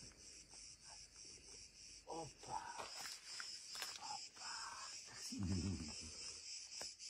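Cicadas chirring steadily in a high, pulsing drone. Brief low vocal sounds break in a few times, the clearest about five and a half seconds in, while a frightened dog is lifted.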